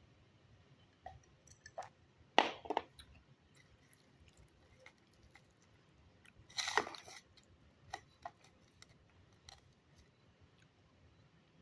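Close-up eating sounds: soft wet mouth clicks and chewing of omelette, with two louder sharp bursts, about two and a half seconds in and again about seven seconds in.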